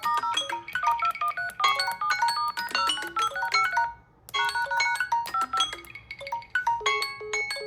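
A smartphone's chiming alert melody: quick, bright mallet-like notes played as a repeating loop, which breaks off briefly about four seconds in and then starts again.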